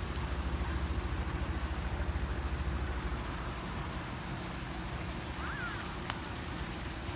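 Steady low rumble with a fast pulse, like a nearby engine running, loudest for the first few seconds over a steady outdoor hiss; a short chirp about five and a half seconds in, then a single sharp click.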